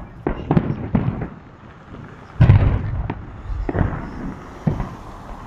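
Fireworks salute shells bursting in the sky: a quick string of bangs in the first second, the loudest about two and a half seconds in with a trailing rumble, then a couple of scattered bangs.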